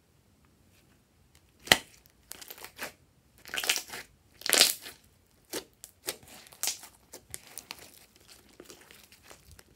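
Glossy slime being stretched, pressed and folded by hand, giving a string of sharp pops and crackles as trapped air bursts out of it. After a quiet start, the loudest pop comes a little under two seconds in, with smaller crackles continuing.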